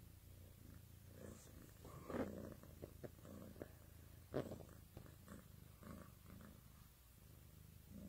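Domestic cat purring faintly and steadily. Two brief soft knocks or rustles come about two seconds in and again a little past the middle.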